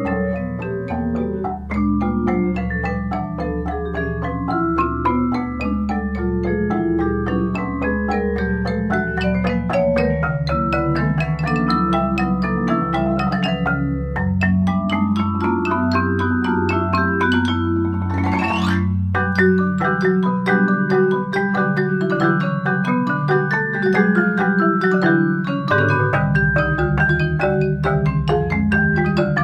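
Mallet percussion ensemble of marimbas, vibraphones and xylophone playing a tango arrangement: quick struck notes over held low notes. About 18 seconds in a fast upward sweep climbs to very high pitch, and the deepest notes then drop out for several seconds.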